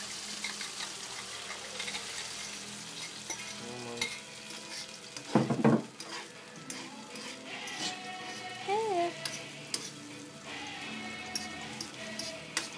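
Chopped onion and beaten egg frying in oil in a small pan over a gas burner: a steady sizzle, with one short louder burst about five and a half seconds in.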